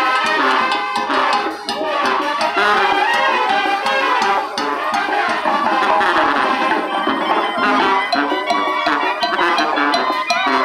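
Lively Latin American band music with drums and a steady beat, playing without a break.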